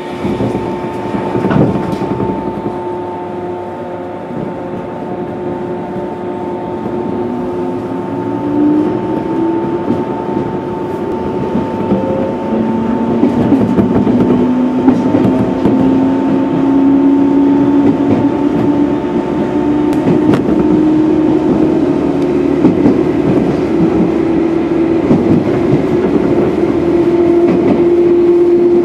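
Japan's 415 series AC/DC electric multiple unit accelerating away from a station stop, heard from inside the carriage. The traction-motor hum rises steadily in pitch as speed builds, under train running noise that grows louder throughout.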